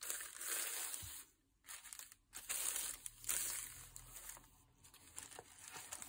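Paper crinkling and rustling in several short bursts as a journal page is handled, quieter near the end.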